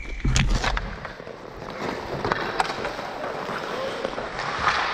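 Ice hockey faceoff: sharp stick clacks on the puck drop in the first second, then steady scraping of skate blades on ice with a couple more stick taps as play moves off.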